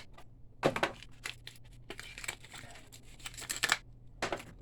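Crinkling and rustling of packaging in short, irregular bursts with small clicks as a new printhead is handled.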